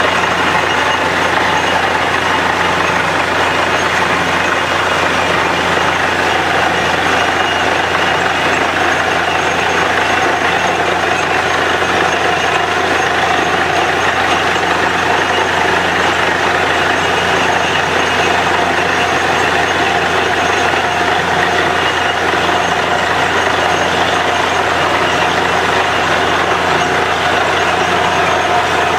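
Truck-mounted borewell drilling rig running steadily while drilling, a constant low engine drone under a loud rushing noise, as muddy water and cuttings are flushed up out of the bore hole.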